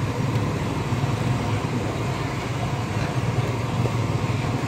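Chickpea-flour gathiya deep-frying in a large kadai of hot oil: a steady sizzle over a steady low rumble.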